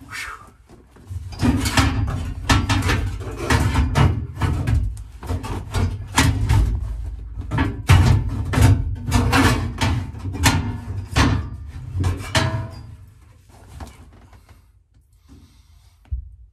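Stamped-steel rear package tray clanking, knocking and scraping against the roll bar and body as it is forced into place, in a dense run of irregular metallic knocks and rattles; the clatter dies away a few seconds before the end.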